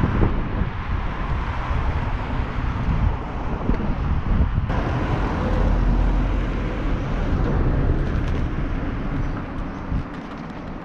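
Wind rumbling on the microphone and road noise of a moving bicycle, with a sudden change in the noise a little under five seconds in.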